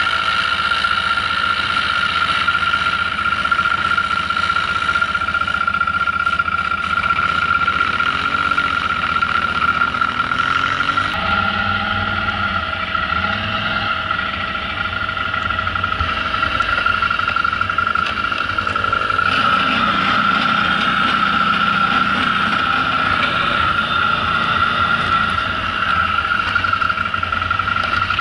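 ATV engine running under load through deep snow, its pitch rising and falling with the throttle, over a steady high tone.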